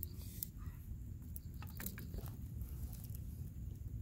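Small campfire of dry twigs and branches crackling, with scattered sharp snaps and pops, most of them in the first half, over a steady low rumble.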